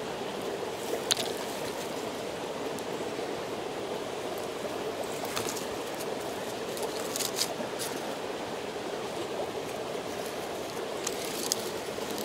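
Small wood campfire being fed pine needles and twigs by hand, giving a few short sharp snaps and crackles: one about a second in, a cluster in the middle and two near the end. A steady rushing sound lies under them throughout.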